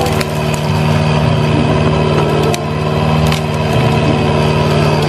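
Kubota KX057-4 mini excavator's diesel engine running steadily under work while its grapple rake shoves through brush, with a few sharp cracks of snapping wood.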